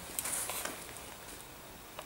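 A few faint clicks and scrapes from a torque wrench being worked on the bolts of a Land Rover front axle swivel housing during the first half-second or so, then only quiet workshop background.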